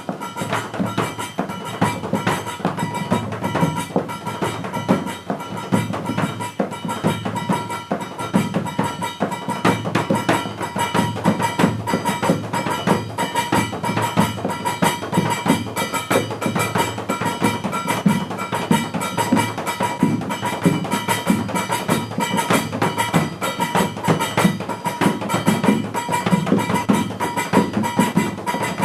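Music with fast, dense drumming and wood-block-like strikes over a steady held tone.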